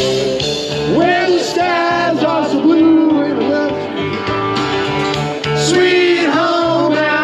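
A song with a voice singing over a guitar-backed track through the party's karaoke system.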